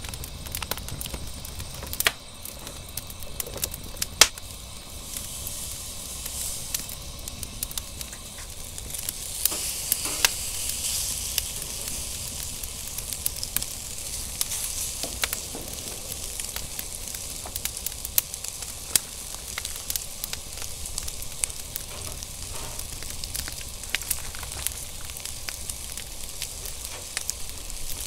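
Wood fire crackling and popping under a wire grill, with meat sizzling on the grate. A couple of louder sharp clicks come in the first few seconds; the sizzling hiss builds from about five seconds in and is strongest around ten seconds.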